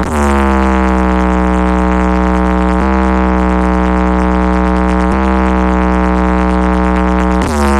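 Large DJ sound-system stack of four bass and four mid cabinets blaring a loud, sustained buzzing electronic tone over heavy bass. Its pitch swoops down and settles at the start and again near the end, with brief dips about three and five seconds in.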